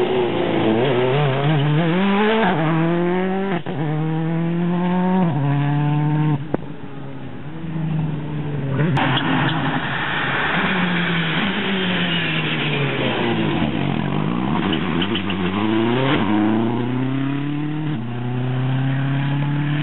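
Rally car engine at full throttle accelerating hard past and away, its note climbing and breaking off at each of several quick gear shifts. A second rally car then comes in from a distance, its engine note falling as it slows, then climbing through more gear changes as it pulls away.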